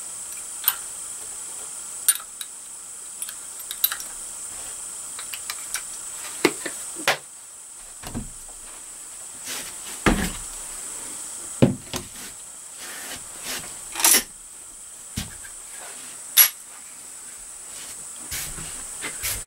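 Steady high-pitched insect chorus, like crickets, with scattered sharp knocks and clicks of equipment being handled; the loudest come about ten, fourteen and sixteen seconds in.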